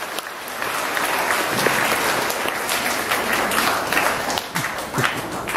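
Audience of schoolchildren and adults applauding: many hands clapping together in a steady round of applause.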